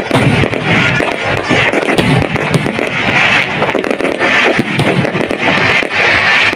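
Aerial firework shells bursting and crackling in quick succession, mixed with background music.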